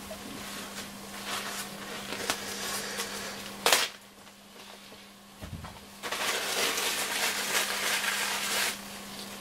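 Close handling noises: scattered clicks and rustling, one sharp click about midway, a soft thump, then a couple of seconds of steady rubbing or scraping hiss. A faint steady hum runs underneath.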